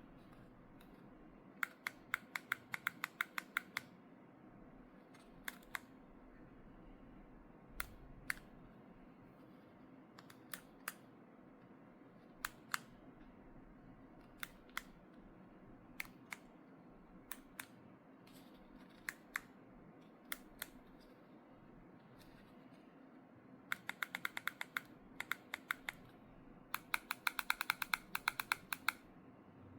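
Sharp small clicks over a faint steady hum: a quick run of about five clicks a second early on, single and paired clicks spaced a second or two apart through the middle, and two fast runs near the end.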